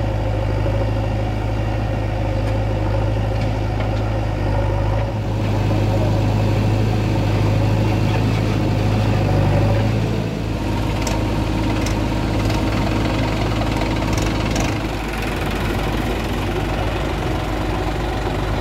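Diesel engines of farm tractors and a JCB 3DX backhoe loader idling, a steady low drone, with a few faint ticks in its second half.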